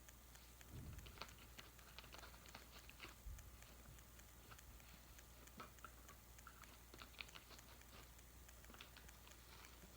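Near silence: faint, scattered clicks and small taps from pet cockatoos shifting about and nibbling, over a steady low hum.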